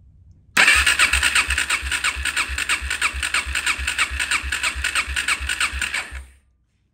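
Suzuki LTZ400 single-cylinder four-stroke engine cranked on its electric starter with the spark plug out and throttle open, for a compression test, so it spins without firing. The starter runs with an even pulse of about three a second as each compression stroke pushes against the gauge. It starts abruptly about half a second in and stops just after six seconds.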